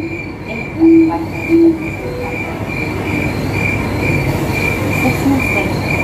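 Steady loud rushing background noise with a high chirp that repeats evenly about two to three times a second, and a few short low tones about a second in.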